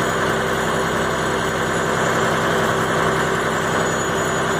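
Fishing boat's engine running steadily at an even, unchanging speed.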